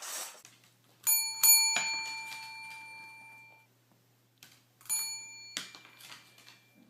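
A small bell rung twice in quick succession about a second in, ringing out and dying away, then rung again near five seconds and stopped short.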